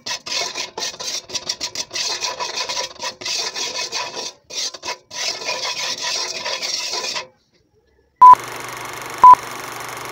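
Metal ladle scraping and stirring salt around the bottom of a new metal wok in quick, irregular strokes, as the salt is toasted to season the wok. The scraping stops about seven seconds in; about a second later a film countdown leader starts, a steady hiss and low hum with two short high beeps a second apart.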